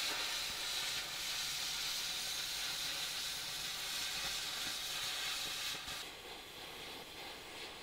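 Cutting torch hissing steadily as it cuts through the rusty sheet-steel roof of an old car; the hiss drops to a quieter level about six seconds in.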